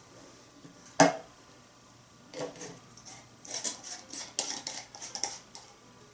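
Metal cookware and utensils clattering: one sharp knock about a second in, then a string of clinks and scrapes for about three seconds.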